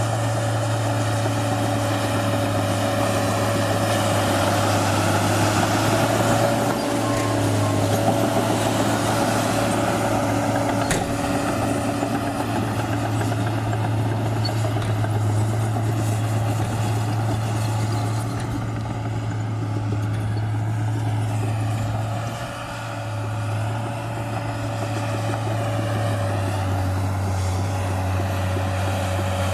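New Holland D180C crawler bulldozer's diesel engine running steadily while working, heard from inside the cab, with a brief dip in loudness about 22 seconds in and a slight drop in pitch near the end.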